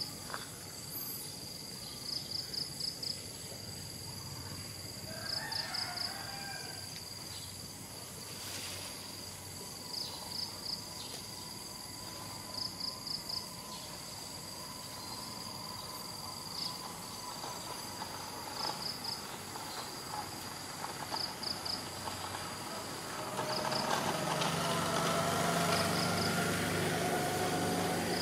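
Cricket chirping in short trains of three to five high-pitched pulses about every two and a half seconds, over steady outdoor background noise. From about five seconds before the end, a louder motor engine hum comes in and runs steadily under the chirps.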